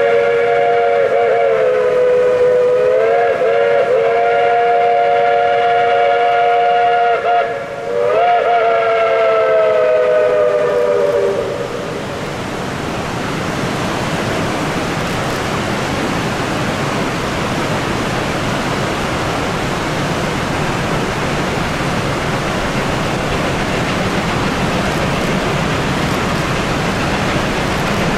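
Steam whistle of the Durango & Silverton's K-36 locomotive #480 blowing a long chord of several notes together. It wavers in pitch twice, breaks off briefly about seven seconds in, then stops about twelve seconds in. After that comes the steady noise of the narrow-gauge train running.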